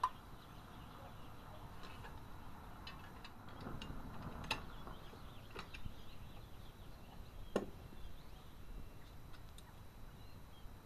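A few sharp clicks and knocks of cast-iron hand-pump parts being handled and fitted back together, the loudest about three quarters of the way through, with faint bird chirps behind.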